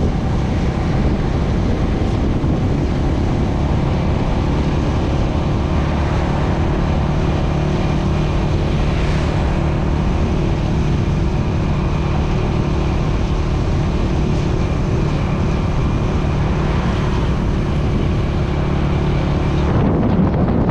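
Motorbike engine running steadily while riding, with the rush of wind over the microphone.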